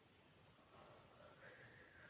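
Near silence: faint room tone with a steady hiss. A faint drawn-out sound rises slightly in pitch through the second half.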